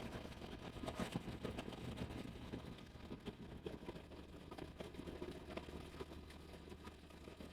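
Construction machinery at a concrete pour running steadily in the background as a low hum, with scattered light clicks and knocks.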